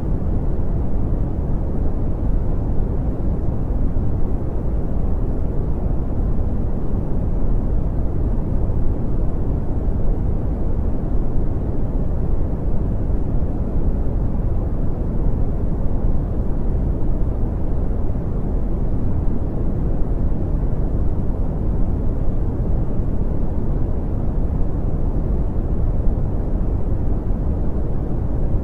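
Brown noise: a steady, deep rumbling hiss, strongest in the bass and fading toward the treble, with no changes or events.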